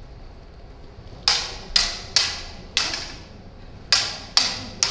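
Plastic lightsaber blades clashing in a sparring fight: seven sharp clacks, each ringing briefly, in quick runs starting about a second in.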